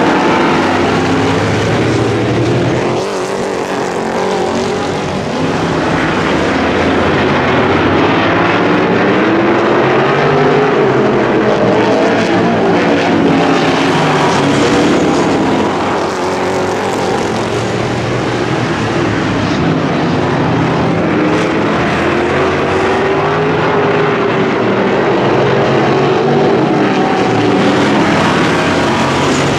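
A pack of V8 race cars, winged supermodifieds and stock-bodied late models, running together in a heat race. The engine notes rise and fall in pitch in slow waves as the cars lap.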